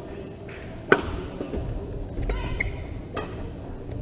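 Badminton rackets striking the shuttlecock: sharp hits about a second apart, the loudest about a second in, over the low hum of a sports hall.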